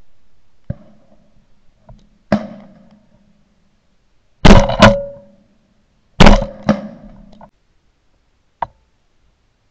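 Shotgun shots: two very loud blasts about halfway and two-thirds of the way through, each followed within half a second by a second sharp report. There are fainter shots earlier and a short one near the end.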